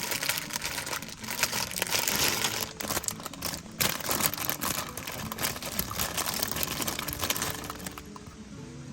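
Food sizzling and crackling as it cooks: a dense, steady crackle full of small pops.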